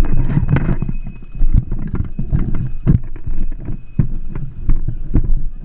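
Low rumble with irregular thumps and knocks right at a body-worn camera's microphone, typical of wind buffeting and handling noise, with faint thin high tones running through it.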